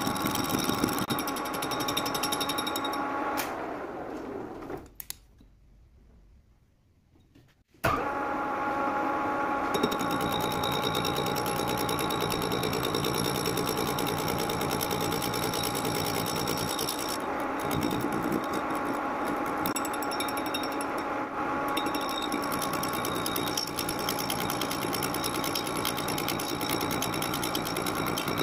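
Metal lathe running with a steady, rapid mechanical whine. About four seconds in it dies away to near quiet for roughly three seconds, then starts again suddenly and runs on steadily.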